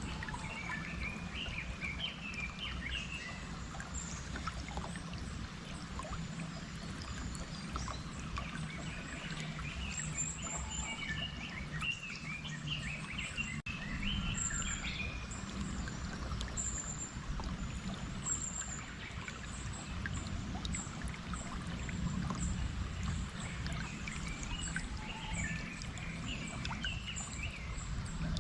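Flowing stream water with birds singing: a steady rush of water under bursts of twittering chirps that come and go, and short thin high notes repeated throughout.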